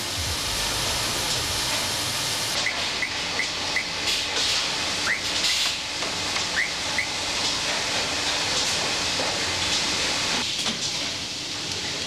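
Automated coil-winding machinery running with a steady hiss. About three seconds in there is a quick run of four short, high chirps, and a few more follow a couple of seconds later.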